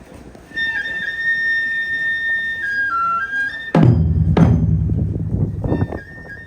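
Opening of a taiko piece: a flute plays a high held note that steps down in pitch, then taiko drums hit two hard strokes and roll on quickly for about a second and a half before the flute carries on.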